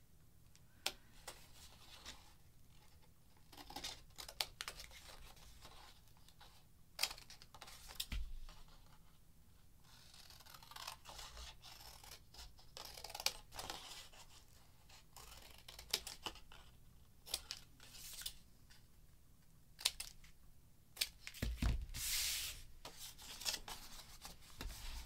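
Scissors snipping through a strip of paper in short, separate cuts, with paper being handled between them. The paper rustles more densely a little before the end.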